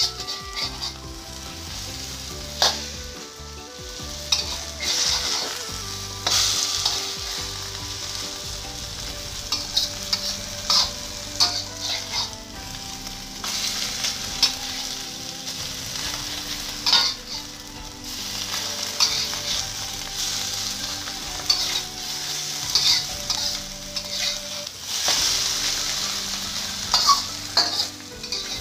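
Egg and garlic chives sizzling in hot oil in a wok while being stir-fried, with a spatula scraping and tapping against the pan at irregular intervals.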